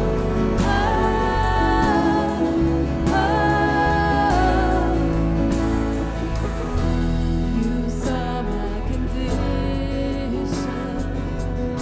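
Live church worship band playing a slow worship song, with singers carrying sustained sung lines over the band in the first half. About halfway through, the singing thins out and the instruments carry on.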